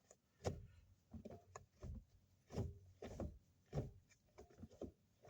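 Manual gear shifter of a Ford Mustang, with a new MGW shift knob, being moved through the gears: a series of about seven short clunks, one roughly every half second to second.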